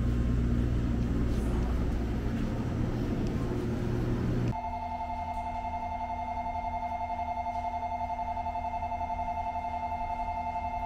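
Steady hum and rumble of a train standing at the platform. About four and a half seconds in, this cuts off abruptly and an electronic station departure bell rings: a fast-pulsing two-tone ring, held steadily, that signals the train is about to leave.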